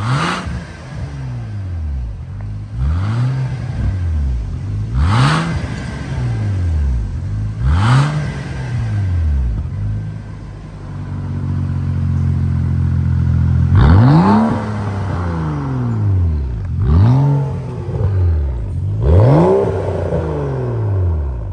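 BMW 640i's turbocharged inline-six blipped repeatedly in free revs through an aftermarket T1 valved cat-back exhaust with quad tips. Each rev sweeps up in pitch and falls back to idle, about eight times, and about halfway through the engine is held steady at raised revs for a few seconds.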